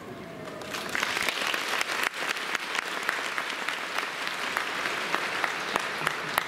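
Audience applauding, starting about a second in with many sharp individual claps.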